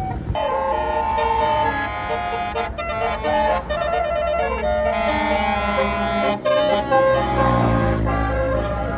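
Basuri telolet multi-note air horn on a tour bus playing a melody of quick stepped notes with short breaks. A low bus engine rumble takes over near the end.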